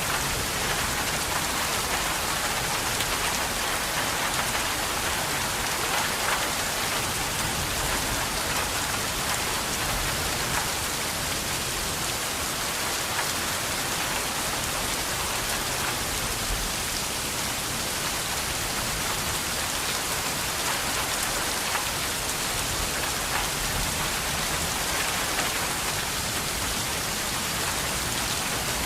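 Steady rain falling: an even hiss of rain with a dense patter of individual drops, holding at one level throughout.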